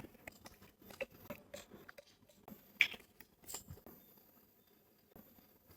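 Close handling noises: a scattered run of small clicks, taps and rustles, the sharpest a little under three seconds in, dying down over the last couple of seconds.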